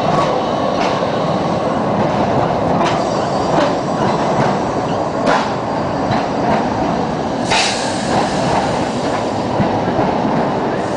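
Tram rolling past at close range: a loud, steady rumble of steel wheels on the rails, with scattered clicks and knocks, the sharpest about seven and a half seconds in.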